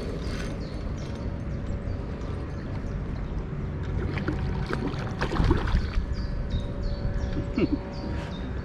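Wind buffeting the microphone as a steady low rumble, with scattered small clicks and faint high chirps over the last couple of seconds.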